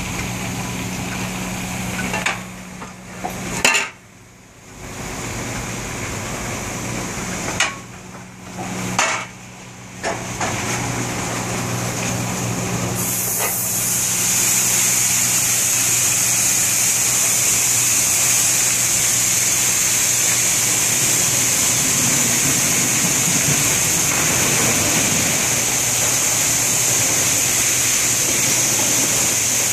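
Car wash tunnel machinery running with a steady low hum and a few knocks. About halfway through it gives way to the loud, even rush of liquid pouring down from a waterfall-style soap curtain applicator onto a minivan.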